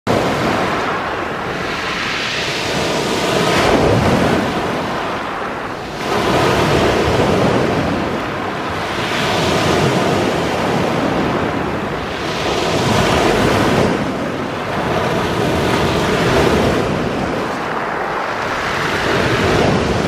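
Small sea waves breaking and washing up a pebble beach, the surf swelling and falling back about every three seconds.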